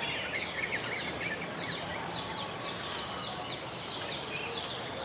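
Birds calling: many short, falling chirps repeated a couple of times a second, with a quick chattering phrase near the start, over a steady outdoor background hiss and a thin, steady high-pitched tone.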